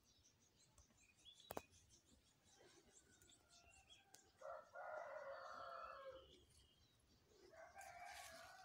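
A rooster crowing faintly: one long crow of about two seconds near the middle, and a second crow starting near the end. A single sharp click about one and a half seconds in.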